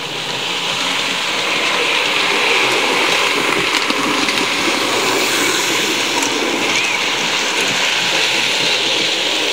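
Model railway locomotive running on the track: a steady whirring rush of its electric motor and wheels, starting suddenly and growing louder over the first two seconds.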